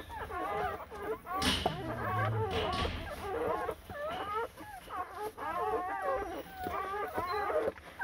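Newborn puppies squealing and whimpering: many short, wavering high cries, overlapping one another almost without a break.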